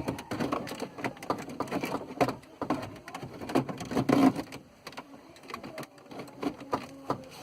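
Irregular clicking and rattling from hands working with car stereo wiring and plastic parts, loudest about four seconds in and quieter near the end.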